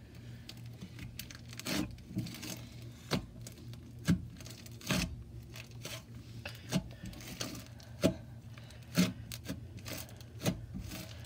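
Hands kneading, stretching and folding a thick beaded slime, giving irregular sticky pops and crackles about once a second, with the louder ones as the slime tears and is pressed back down.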